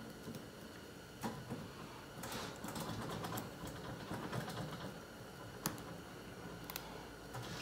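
Fillet knife working around the bony head of a walleye to cut out the cheek meat: faint scraping with scattered small clicks as the blade catches on scales and bone, one sharper click about three-quarters through.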